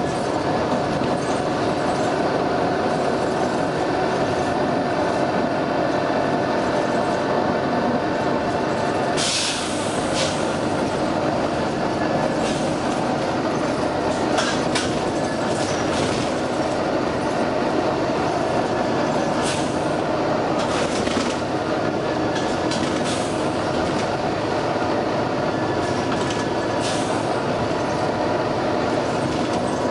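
Volvo B9TL double-decker bus running, its diesel engine and drivetrain making a steady drone, with repeated short sharp air hisses from its compressed-air system, the longest lasting about a second.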